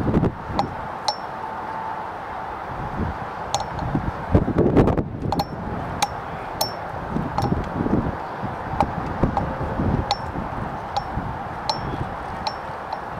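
Irregular light metallic clinks, a dozen or more, each ringing briefly, over gusts of wind rumbling on the microphone, the strongest about four to five seconds in.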